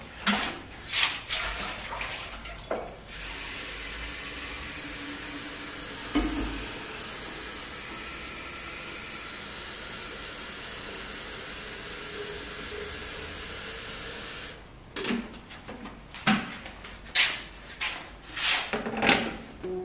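Kitchen mixer tap running steadily for about eleven seconds, filling a kettle, with a knock partway through. Before and after the water there are clicks and knocks as the kettle is handled.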